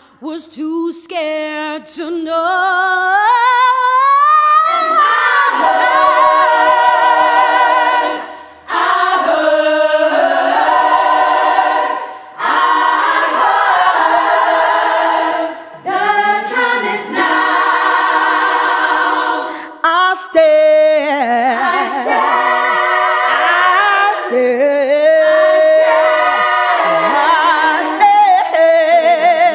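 Women's choir singing a cappella, voices held in chords with vibrato. Over the first few seconds a voice slides steadily upward in pitch, and short breaks fall between the sung phrases.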